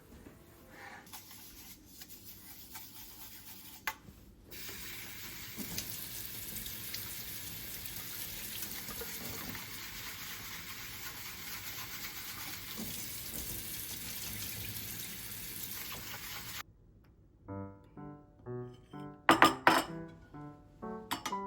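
A steady rush of running water, with light clinks, that cuts off suddenly, followed by background music with clear melodic notes.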